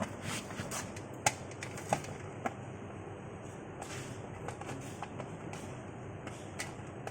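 Rambak cracker-cutting machine running with a steady low hum. A few sharp clicks come in the first couple of seconds, followed by lighter ticks.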